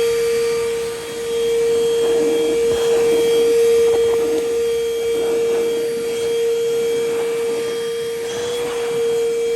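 DN DENNOV VT-DH004 cordless handheld vacuum running, its motor giving a steady whine over rushing air, with some rubbing and handling noise in the middle.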